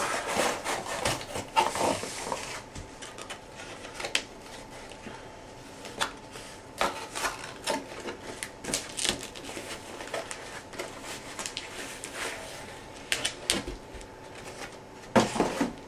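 E-reader packaging being opened by hand: irregular rustling of plastic and cardboard with scattered clicks and knocks, busiest near the start and again near the end.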